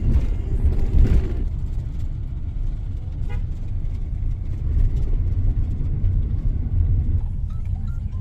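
Bus engine and road noise heard from inside the cabin: a steady low rumble, louder for a moment about a second in.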